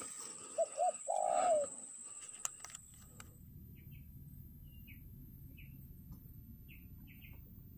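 Spotted dove cooing: two short notes and then a longer, slightly falling note in the first two seconds. Faint, scattered high chirps of small birds follow.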